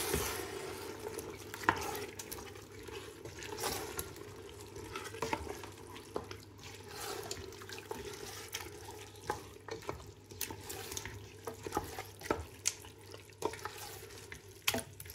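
Chana dal and mutton masala being stirred in a pressure cooker: irregular scrapes and knocks of the spoon against the pot over a faint sizzle.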